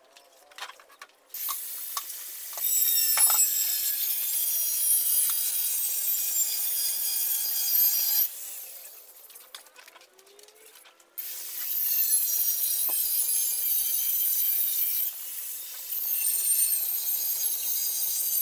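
A power tool working against a surface with a harsh, high-pitched hiss, in two long stretches with a pause of about three seconds between them.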